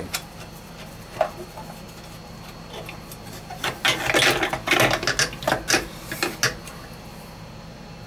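Metal scraping and rattling in quick bursts for a few seconds, as an oil burner's electrode and nozzle assembly is slid out of its air tube, after a single click about a second in. A steady low hum runs underneath.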